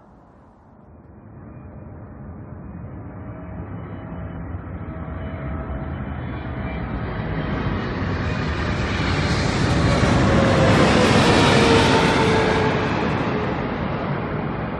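Boeing 747's four jet engines passing close overhead on landing approach: a rushing rumble that swells for about ten seconds, with whining tones that slide down in pitch as it goes by, then begins to fade.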